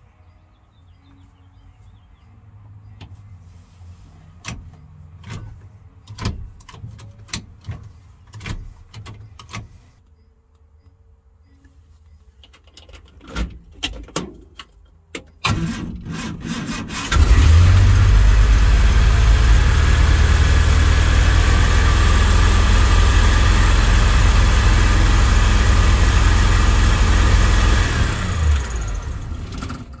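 Clicks and knocks, then about 15 seconds in a Triumph GT6's 2-litre straight-six engine is cranked and starts, running loud and steady for about ten seconds before it stops near the end.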